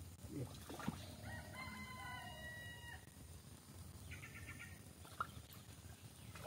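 A rooster crowing once, a long call of about two seconds, followed a second later by a shorter call. Two brief sharp clicks stand out, one near the start and one about five seconds in.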